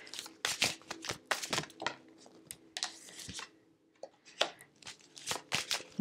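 Tarot cards being handled on a table: an irregular run of crisp clicks and light slides for about three and a half seconds, then a few scattered clicks after a short lull.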